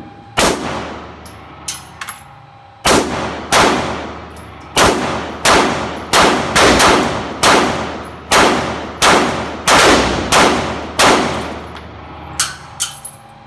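Handgun fired in a string of about fourteen loud shots, roughly one every half second to second, each ringing out in the echo of an indoor firing range. A few fainter shots fall between them, about two seconds in and near the end.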